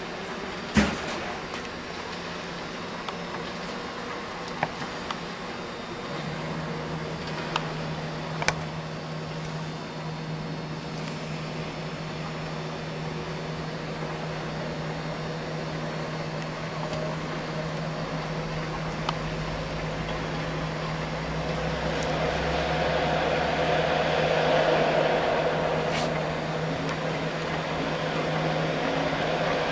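Lindbergh 35K electric aircraft tow tractor moving a nose-wheel-cradled airplane. Its electric drive motor gives a steady low hum that sets in about six seconds in. There is a sharp knock about a second in and a few light clicks, and a broader rolling noise swells near the end.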